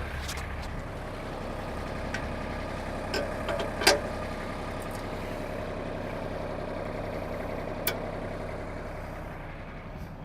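Mahindra Max series compact tractor's diesel engine running steadily while the backhoe hydraulics are worked to line up the top mounting pins. A few sharp metal clicks and clunks, the loudest about four seconds in, another near eight seconds.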